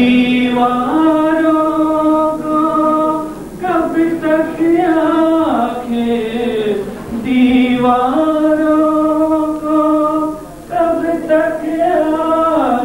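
Voices singing a slow melody in long held notes that step up and down, with short breaks between phrases.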